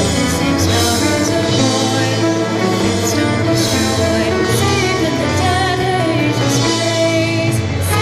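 Progressive rock played by a full band, with keyboards, guitars, bass, drums and horns in a dense, loud, continuous passage.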